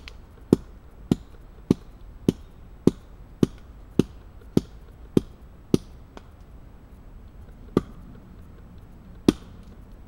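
Small axe chopping wood on a log: about ten sharp, even strikes at roughly two a second, then a pause and two more single strikes toward the end.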